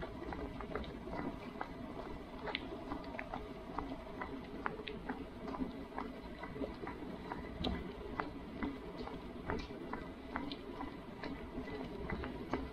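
Footsteps on a hard path: many sharp, irregular taps, a few each second, over a steady low background murmur.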